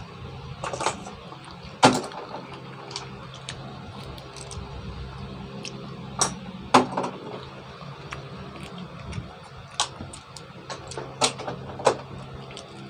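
Sharp, separate clicks and clacks of green mussel shells knocking against each other and against a stainless steel bowl as mussels are picked out and pried open, about half a dozen over the stretch, over a steady low hum.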